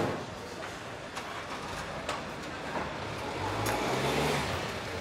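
Car engine running close by in a narrow street, its low hum swelling about three seconds in, over steady street noise. A short knock right at the start.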